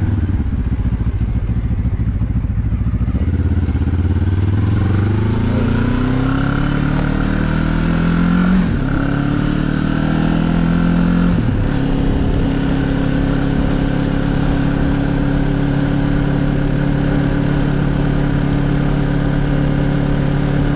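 QJ Motor SRT 700's parallel-twin engine accelerating away, its note rising through the gears with two upshifts, the pitch dropping at each shift about halfway through and again a few seconds later. It then runs at a steady pitch at cruising speed.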